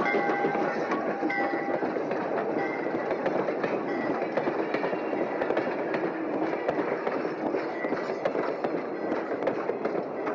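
A train of cabooses rolling past at close range: a steady rumble of steel wheels on rail, with frequent clicks and clatter as the wheels cross the rail joints.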